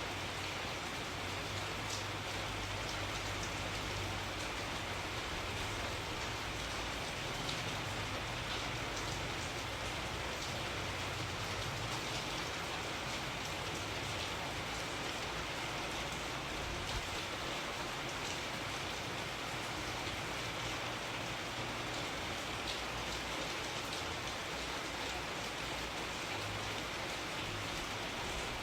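Steady rainfall: a constant hiss of rain with many small drops pattering on a surface, even throughout.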